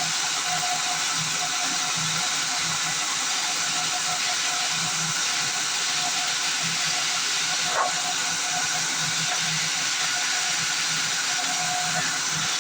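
Sawmill band saw running with a steady, even mechanical noise and a faint hum underneath, a single short tick about eight seconds in.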